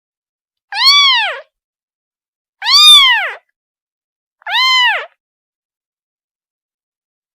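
Kitten meowing three times, calling for its mother; each loud call about two-thirds of a second long, rising then falling in pitch, with short silences between.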